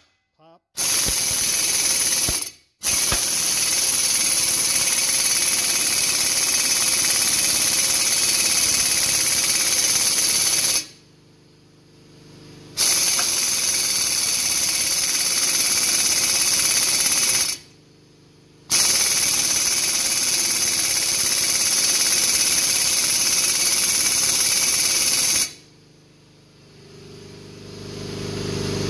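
Snap-on 750 ft-lb air impact wrench hammering on a gear puller's screw, trying to press a rust-seized piston out of its cylinder bore. It runs in four bursts, a short one and then three long ones, with brief pauses between them.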